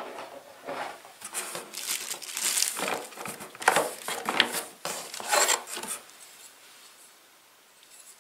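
Clear plastic packaging crinkling and rustling in a cardboard box as a hand reaches in and handles the wrapped unit, in irregular bursts that stop about six seconds in.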